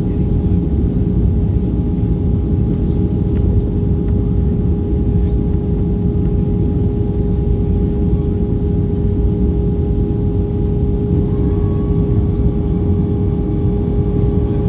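Airbus A320 cabin noise at a window seat: a steady rumble of airflow and CFM56-5B engines, with a constant droning tone over it. A faint higher tone joins about eleven seconds in.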